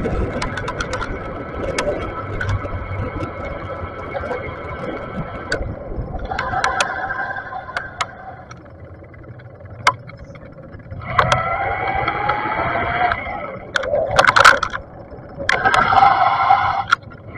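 Riding an e-bike in street traffic: the Bafang BBS mid-drive motor whines steadily at first, then in bursts of a second or two as power comes on and off, the pitch rising with speed in one burst. Sharp clicks and rattles from the bike come through over the road, the loudest toward the end.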